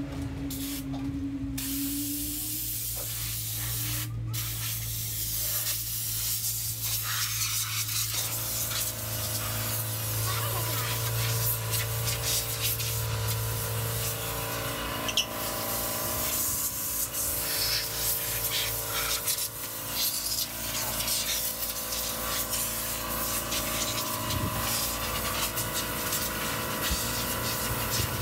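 Water spraying onto a car's bodywork: a steady hiss. A low steady hum runs underneath for the first half.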